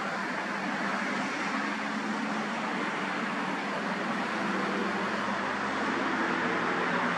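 Passing car traffic on a multi-lane road: a steady rush of tyres and engines that slowly grows louder.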